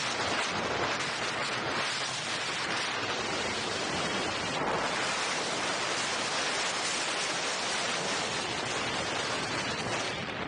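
Wind buffeting the camera microphone while riding an electric unicycle at speed: a steady, loud rushing noise.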